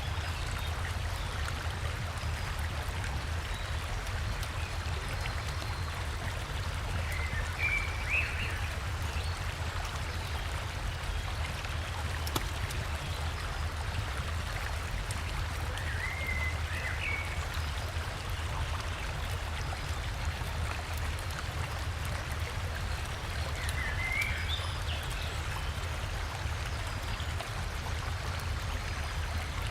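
Steady rushing of a forest river and small waterfall, with a bird's short chirping call three times, about eight seconds apart.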